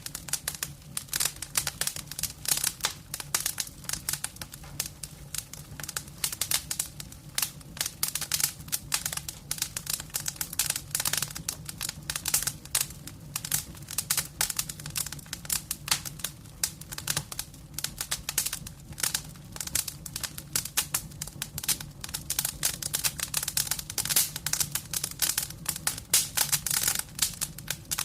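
Wood fire crackling in a fireplace: dense, irregular snaps and pops over a low steady hum.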